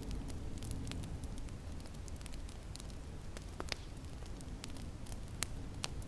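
Wood fire crackling in a fireplace, with irregular sharp pops and snaps, over a steady low rumble of snowstorm wind.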